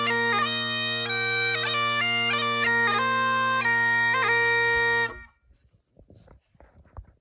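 Bagpipes playing a tune, with steady drones under the changing chanter notes, stopping abruptly about five seconds in. A few faint knocks follow.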